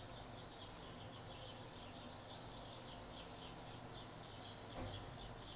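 Quiet room tone with a faint steady hum under a continuous run of faint, rapid, high bird chirps. A soft click or knock comes near the end.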